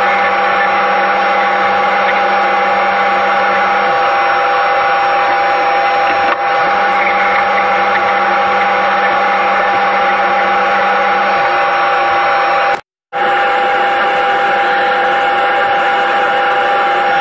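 Wood lathe running with a steady whine and hiss while the spinning beech vase is sanded. The sound cuts out for a moment about three quarters of the way through, then carries on unchanged.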